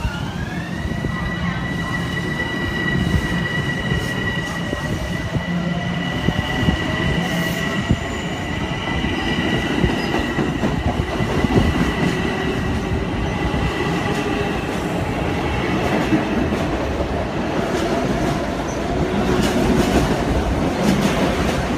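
Long Island Rail Road electric train running through the station: a continuous rumble and rail noise under a high, steady two-note whine that fades out about three quarters of the way in.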